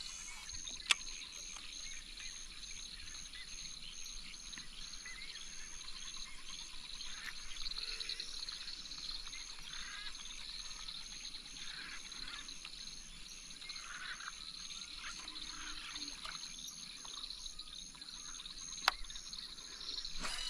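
Countryside ambience: a steady high insect drone with a regular chirp about twice a second, scattered bird calls, and two sharp clicks, one near the start and one near the end.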